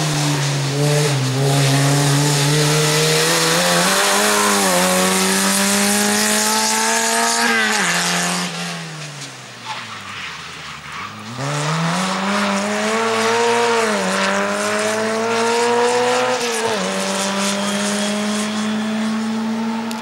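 Škoda 130 LA rally car's four-cylinder engine at full throttle, climbing in pitch and dropping back at each upshift several times. About halfway through, the revs fall away and the sound drops for a couple of seconds as it slows for a bend, then it pulls hard up through the gears again.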